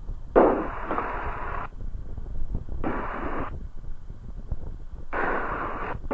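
Light aircraft's radio or intercom audio cutting in and out: three bursts of hiss that start and stop abruptly, with no clear words, over a low steady engine rumble.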